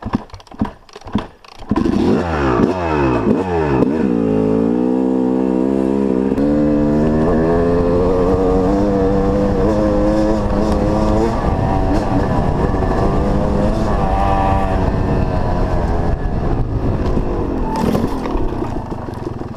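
Dirt bike engine catching about two seconds in after a few short sputters, revved in quick blips, then pulling away and accelerating through the gears, its pitch climbing and dropping back at each shift.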